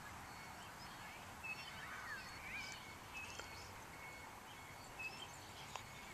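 Birds chirping and calling, many short chirps and quick whistled glides, over a faint steady outdoor hiss.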